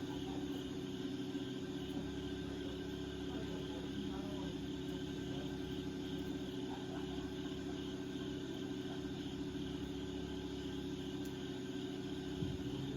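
Insects chirping steadily in a rapid pulsing trill over a steady low hum, with a single faint click near the end.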